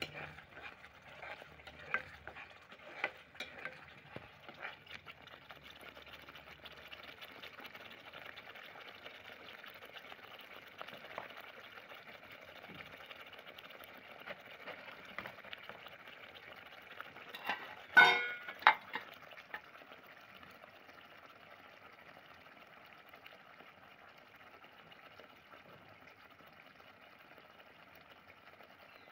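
Thick rajma curry bubbling and sizzling in a kadhai, stirred with a perforated metal spoon, with clicks and scrapes of the spoon against the pan in the first few seconds. A loud knock a little past halfway, with a second soon after, is the loudest sound.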